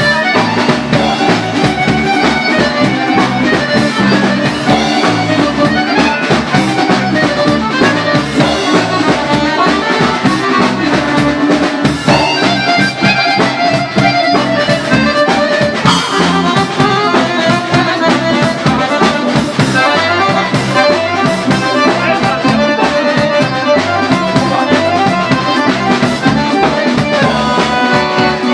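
Guerrini piano accordion playing a tune, its right-hand keyboard carrying the melody over a steady beat.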